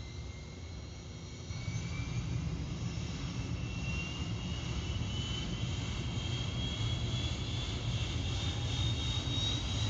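Airplane engine starting up: a steady low rumble that grows louder about a second and a half in, with a high whine slowly rising in pitch as it spools up.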